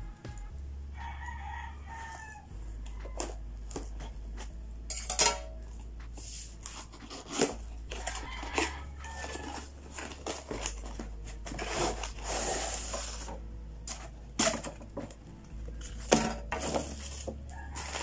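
A cardboard tripod box is handled and opened, giving scattered knocks and rustles, and the tripod in its nylon carry bag is pulled out near the end. A pitched animal call sounds in the background a few times.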